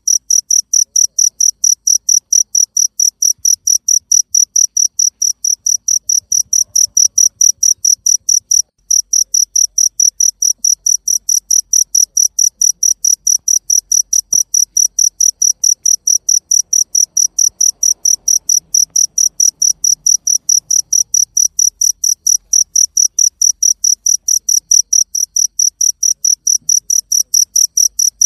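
A cricket chirping close by: a loud, even train of short, high-pitched chirps, several a second, with one brief pause about nine seconds in.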